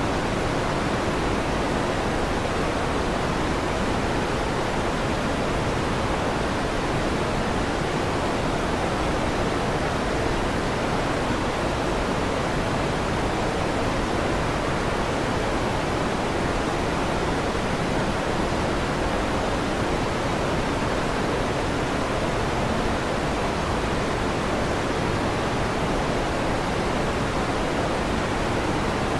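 Electric fan running steadily: an even, unchanging whooshing noise, fullest in the low and middle range.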